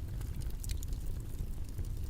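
Steady low, rumbling background noise, as of a white-noise ambience track, with faint scattered small clicks and crackles over it.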